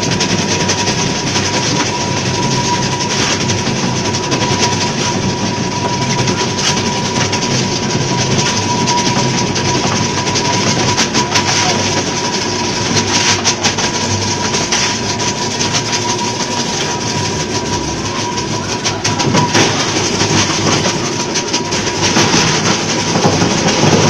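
Electric ice block crusher running and crushing ice: a loud, continuous rattling clatter of ice chips being ground and thrown out, with a steady whining tone through it and sharper clicks now and then.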